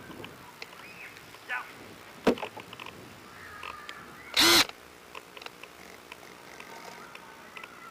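Faint outdoor background with a few light clicks and faint chirps, a sharp click a little after two seconds, and one short, loud burst of noise about four and a half seconds in.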